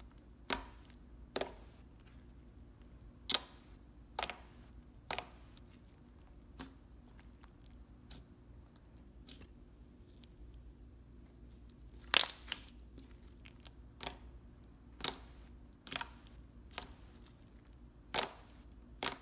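Thick, glossy slime mixed with a little Daiso clay being squished and stretched by hand, giving scattered sharp pops and clicks, roughly one every second or two, with near quiet in between.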